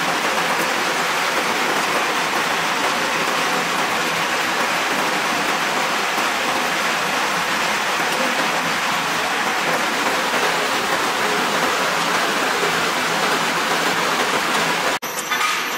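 An electric continuous fryer line running, giving a steady, even sizzling hiss like rain. Near the end it cuts off abruptly and a different, slightly quieter machine noise with a faint high whine takes over.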